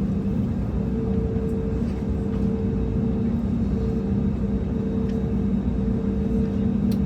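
Steady cabin noise inside an Airbus A320neo: a continuous low rumble with a constant hum over it, and a higher hum tone that comes and goes.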